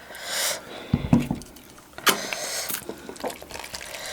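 A spoon scraping and stirring through oiled rice in a bowl, with a few knocks against the dish and some wet mixing sounds.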